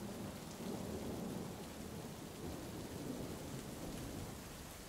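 Steady rain falling, with a low rolling rumble of thunder that swells about a second in and fades near the end.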